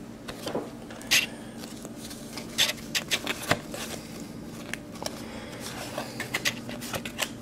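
Pokémon trading cards handled in the hands: cards slid and flicked against one another, giving several short, irregular rustles and snaps.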